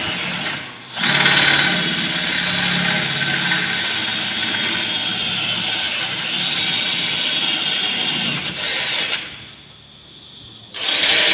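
Cordless drill running steadily as it drills into a sliding door's metal frame. It pauses briefly about a second in, stops about nine seconds in, then runs again in one short burst near the end.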